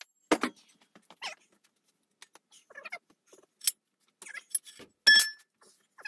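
Manual tube bender being worked on a steel tube: scattered metal clanks, clicks and short creaks, with a sharp click near four seconds and a louder ringing metal clank about five seconds in.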